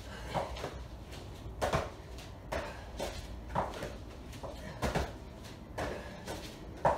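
Dull thuds of hands, bodies and feet landing on exercise mats as two people do burpees, about one landing a second.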